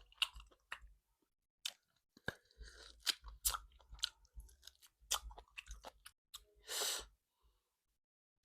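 Close-miked chewing and biting of salt-baked chicken, with irregular wet mouth clicks and smacks and a short, louder burst of noise near 7 seconds. It goes quiet for about the last second.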